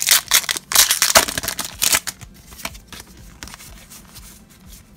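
Foil booster-pack wrapper crinkling and tearing open in loud crackly bursts over the first two seconds, then softer rustling and light clicks as the stack of trading cards is slid out of the pack.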